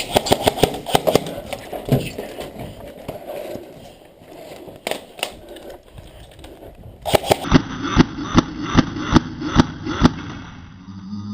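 Airsoft guns firing in runs of sharp clicks: a quick volley in the first second and a steady string of about three to four shots a second from about seven seconds in, with scattered single shots between.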